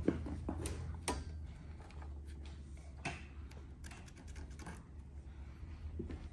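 Scattered light clicks and taps from handling the steel hoop and a marker pen while the bolt holes are marked through the hoop's mounting foot onto the body capping, over a low steady hum.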